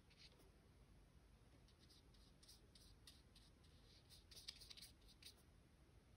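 Faint soft scratching of a small nylon paintbrush laying gouache on paper in short strokes, in clusters about two and a half and four and a half seconds in, over near silence.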